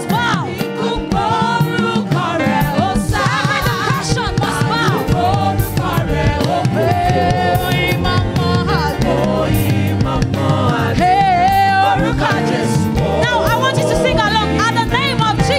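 Live gospel music: a woman lead singer sings into a microphone with held, wavering notes, backed by a choir and steady instrumental accompaniment.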